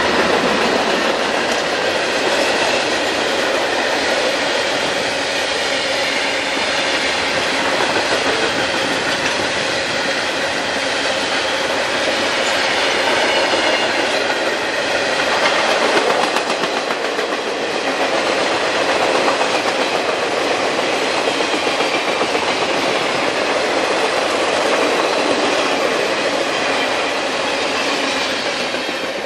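Freight train of heavy flatcars loaded with export locomotives rolling past, steel wheels clicking over the rail joints in a loud, steady rumble that fades near the end as the last car goes by.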